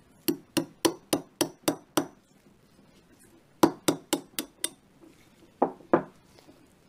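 Hammer striking a pin punch to drift the extractor pin out of a Desert Eagle Mark XIX bolt: a quick run of seven sharp metallic taps, a pause, five more, then two more taps near the end.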